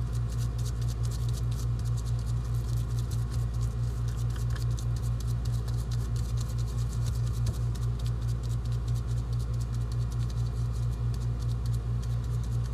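Ground-meat meatloaf mixture squished and pressed by gloved hands into a bread pan: a continuous crackle of small wet clicks. Under it runs a steady low hum.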